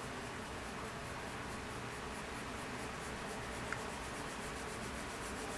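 Colored pencil rubbing lightly over sketchbook paper in shading strokes, with one small tick a little past halfway.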